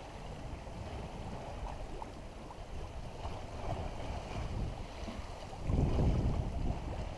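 Wind buffeting the microphone aboard a sailboat under sail, with the sea washing along the hull. The wind rumble grows stronger for about a second near the six-second mark.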